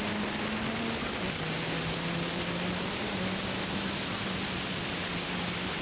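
Rally car driving uphill, heard from a bonnet-mounted camera: a steady rush of wind noise over the microphone with the engine's droning note underneath. The engine note drops a little about a second in and rises again near the end.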